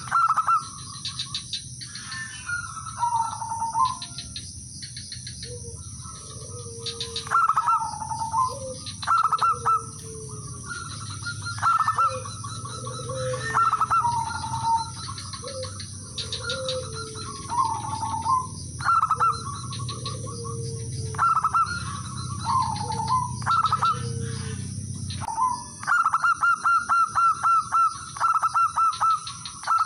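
Zebra doves cooing: repeated phrases of quick stuttering coos that dip in pitch, with lower calls answering between them and a fast run of rapid coos about 26 seconds in.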